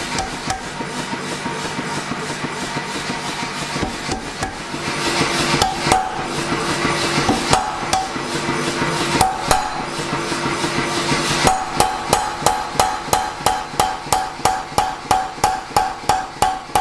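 Hand hammer striking hot C45 steel on an anvil, rounding up one face of a cross peen hammer head, each blow ringing. The blows come irregularly at first, then about two-thirds of the way in settle into a steady run of about three strikes a second.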